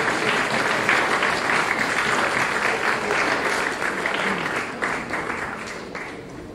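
Audience applauding, the clapping slowly dying away over the last couple of seconds.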